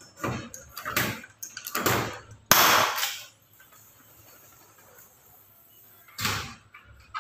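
Hand pop-rivet gun being squeezed against an aluminium sliding-door head frame: a few sharp strokes about a second apart, then a louder sharp crack about two and a half seconds in as the rivet sets, and one more sharp stroke near the end.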